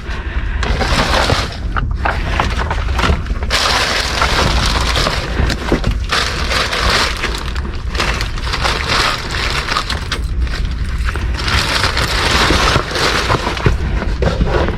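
Rummaging through trash in a dumpster: plastic bags and packaging rustling and crunching in irregular bursts, with a few sharp knocks, over a steady low rumble.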